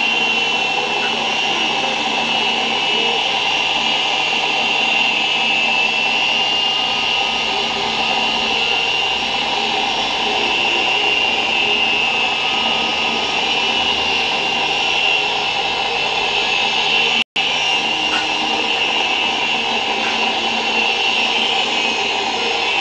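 RC helicopter's motor and rotor running at a constant speed: a steady high whine over an even rushing noise. The sound drops out completely for an instant about three-quarters of the way through.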